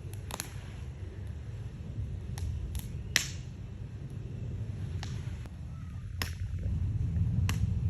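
Campfire crackling: burning wood giving off sharp, irregular pops and snaps, the loudest about three seconds in, over a low steady rumble.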